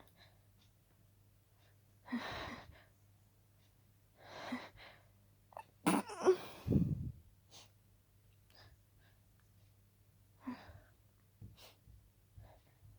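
A person's harshly stifled sneeze about six seconds in, a sudden held-in burst and the loudest sound here, coming after two audible breaths a few seconds apart.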